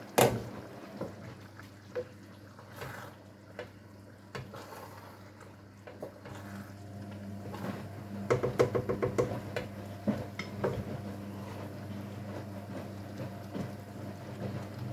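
Kitchen handling of pots and utensils: a sharp knock at the start, scattered clinks, and a quick rattling run of clicks about eight to nine seconds in. Under it a washing machine runs with a steady low hum.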